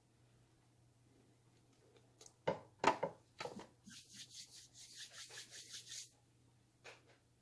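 A few knocks, then about two seconds of quick scratchy rubbing strokes, around five a second, and a faint tap near the end.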